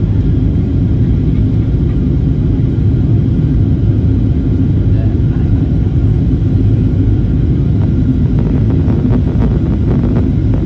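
Steady low roar inside the passenger cabin of a Boeing 737-800 descending on approach: its CFM56-7B turbofan engines and the airflow over the fuselage, with a faint steady hum on top.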